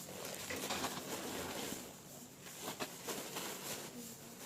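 Faint, low bird cooing, like a dove.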